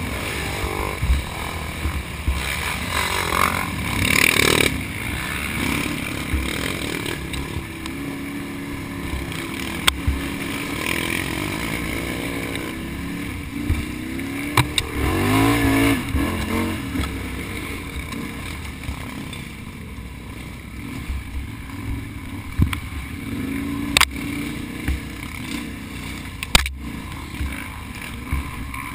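Can-Am Outlander XXC ATV's V-twin engine running hard through a Looney Tuned aftermarket exhaust, its pitch rising and falling with the throttle over rough ground, with a few sharp knocks.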